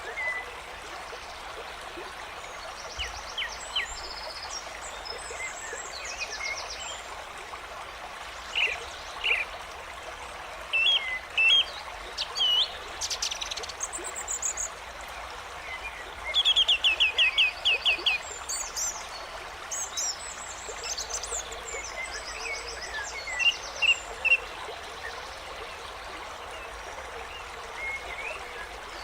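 Nature ambience of a steady babbling stream with songbirds chirping and trilling over it, a loud rapid trill about halfway through.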